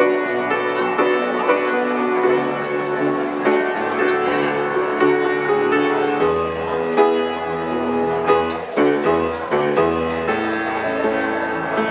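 Instrumental music with no singing, led by a keyboard playing sustained chords over a moving bass line.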